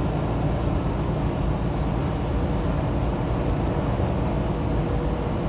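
Steady drone of a semi-truck's diesel engine and road noise heard from inside the cab while driving.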